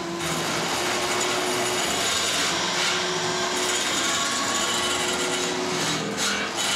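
Noise performance: a dense, steady wash of motor-like noise from small electric appliances, with short held low tones coming and going.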